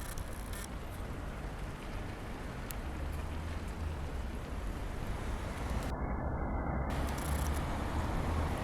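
Wind blowing against the microphone, a steady low rumble with a hiss that slowly grows stronger.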